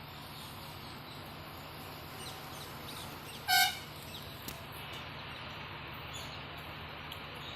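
A single short vehicle horn toot, one flat-pitched beep lasting about a third of a second, about three and a half seconds in, over steady outdoor background noise.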